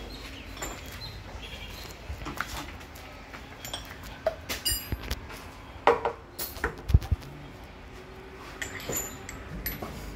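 Scattered metallic clinks and knocks as a hydraulic hose and its steel fitting are handled and pushed into a hose crimping machine's die head. The loudest knocks come about six to seven seconds in, over a faint steady hum.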